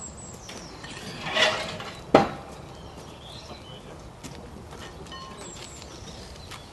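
Steel rail sections being handled on tarmac while temporary track is laid: a short scrape, then one sharp clank about two seconds in. Occasional faint bird chirps in the background.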